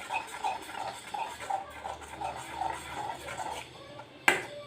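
Spatula stirring and scraping scrambling eggs in a frying pan, in quick repeated strokes about three a second, with a sharp clank against the pan about four seconds in.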